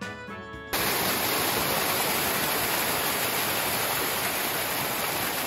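Rushing water, as from a waterfall or mountain stream: a loud, steady hiss that starts abruptly less than a second in as music cuts off.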